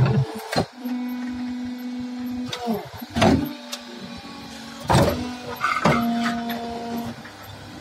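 Fly ash brick-making press running: a steady motor hum that drops in pitch for a moment about two and a half seconds in, with several sharp metal clanks from the press and mould.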